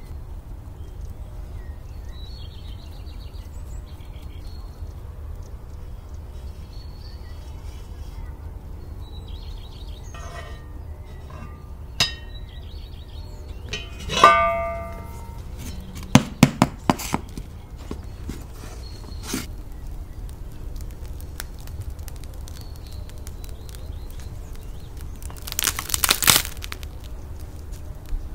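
Heavy cast-iron Dutch oven lid clanking and ringing briefly as it is lifted off the pot, followed by a quick series of sharp metal knocks. A short crackling rustle comes near the end.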